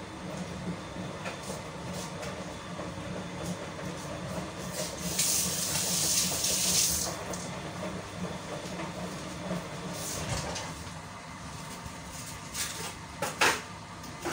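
Kitchen tap water running into the sink for about two seconds midway, as hands are rinsed, over a steady low hum. A couple of sharp knocks near the end.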